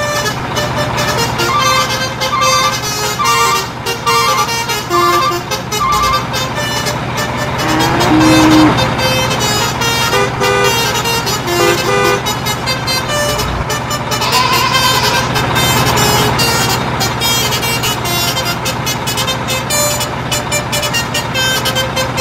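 A truck engine running steadily, with short beeping, tooting notes of a light tune over it.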